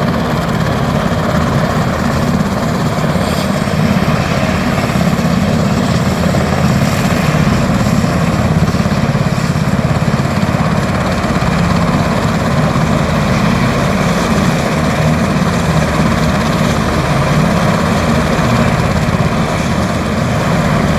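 Military helicopters running steadily, a loud, even rotor and engine noise with no break.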